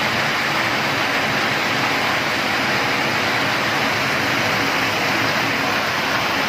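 Locally made 20 kW crossflow-turbine micro-hydro plant running: a loud, steady rush of water that does not change.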